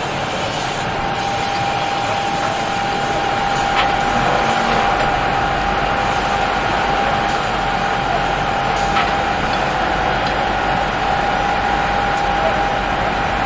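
Airport fire trucks running and spraying water on an aircraft fire: a loud, steady rushing noise with a high, steady whine held throughout.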